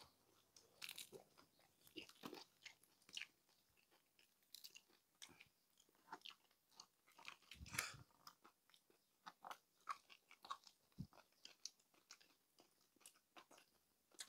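Faint crunching and chewing of crispy pata, deep-fried pork leg, in irregular short crackles, with one louder crunch about eight seconds in.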